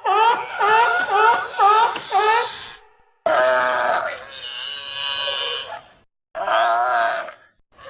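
Seal and sea lion calls edited into a Hawaiian monk seal creature sound effect. A quick run of about six short calls, each rising and falling in pitch, is followed by one long drawn-out call and then a shorter wavering call near the end.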